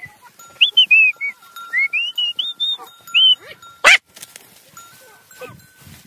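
A person whistling a short wavering tune in clear high notes, followed about four seconds in by a single sharp, loud click.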